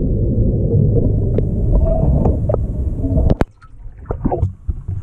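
A loud low rumble that cuts off abruptly about three seconds in, followed by a few sharp knocks.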